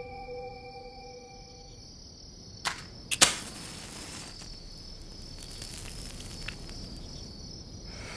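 Sustained musical tones fade out. A cigarette is then lit with a sharp click and, about half a second later, a louder strike with a short hiss. Crickets chirp steadily behind it.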